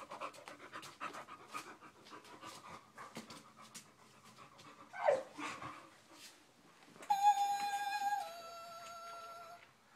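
Dog panting rapidly, with a short falling whine about five seconds in. About seven seconds in, a Gizmo plush toy from Gremlins sings two long held electronic notes, the second a step lower.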